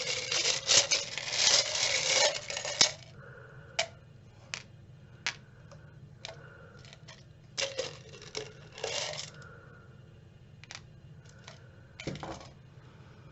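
Small metal charms rattling inside a clear jar as it is shaken for about three seconds, then scattered clicks and clinks, with another short rattle near the middle, as charms are tipped out and handled on the cloth-covered table.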